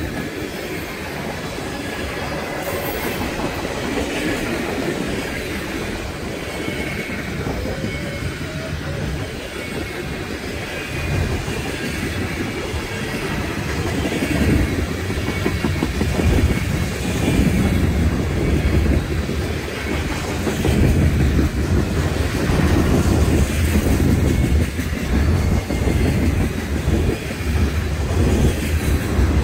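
Freight cars of a CSX train (covered hoppers, boxcars and tank cars) rolling past close by: a steady rumble of steel wheels clacking over the rails, getting louder about halfway through.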